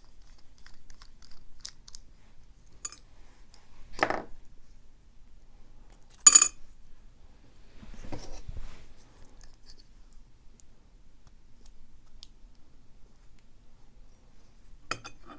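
Small metal clicks and scrapes of a pin-tumbler lock being taken apart with a slotted screwdriver, with a knock about four seconds in and a sharp, ringing metallic clink about six seconds in.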